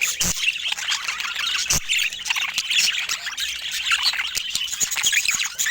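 Budgerigars chattering: a dense, unbroken stream of rapid chirps, squawks and warbles, with a couple of short knocks near the start.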